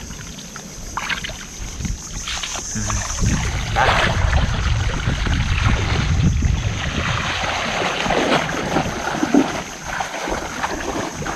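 Hands swishing and plunging clumps of sea grapes (lato seaweed) in shallow seawater to rinse them clean, the water sloshing and splashing irregularly, with wind rumbling on the microphone.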